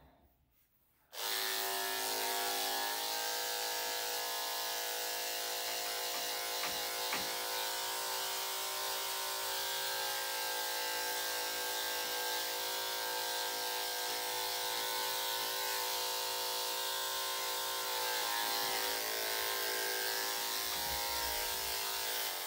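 Corded electric dog grooming clipper switching on about a second in and then running steadily with an even hum as it clips a Yorkshire Terrier puppy's coat.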